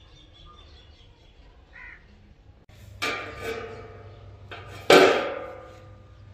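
Rusty antique rifle action set down in a steel channel: a metallic clank about three seconds in, then a louder clank about two seconds later, each ringing out briefly.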